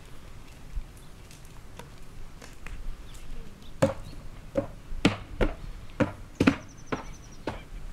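A horse's hooves knocking on a flat board laid on the ground as it walks across it: a run of about eight sharp knocks, roughly two a second, starting about four seconds in.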